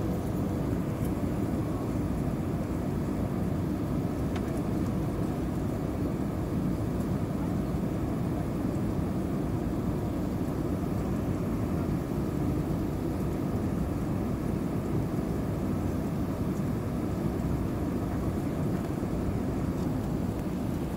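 Steady cabin noise inside an Airbus A320-232 on approach: the even rush of air past the fuselage mixed with the hum of its IAE V2500 turbofan engines.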